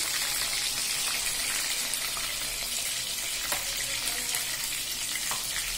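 Oil sizzling steadily around pomfret slices shallow-frying in a pan, the fish fried through. Two light clicks come about three and a half and five seconds in.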